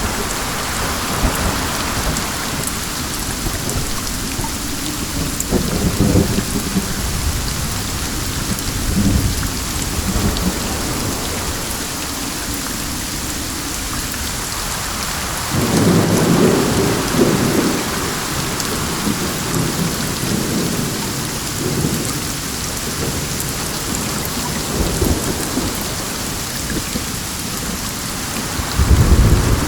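Steady, heavy rain hissing, with deep low rumbles swelling up about six seconds in, again for a couple of seconds around the middle, and once more near the end.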